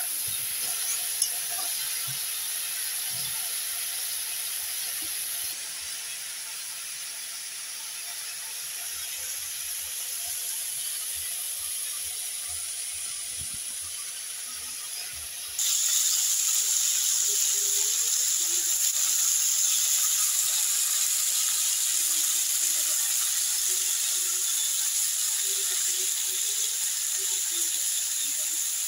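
Potatoes and tomato masala sizzling in oil in a wok, fried until the oil has separated from the spices. A steady hiss that jumps suddenly louder about halfway through.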